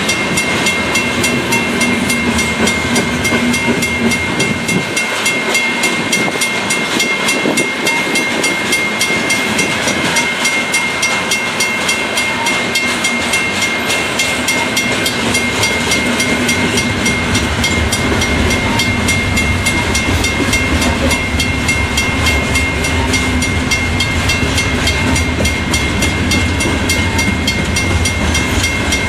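Freight train of covered hopper cars rolling past at a grade crossing, wheels rumbling and clicking over the rails, while the crossing's WRRS mechanical bell rings steadily with rapid, even strikes. The low rumble grows heavier about two-thirds of the way through.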